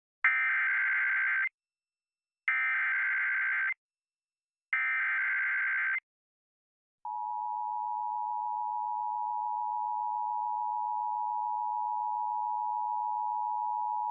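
Emergency Alert System SAME header: three short bursts of warbling digital data tones, each about a second and a quarter long, a second apart. About seven seconds in, the steady two-tone EAS attention signal begins, announcing a severe thunderstorm warning.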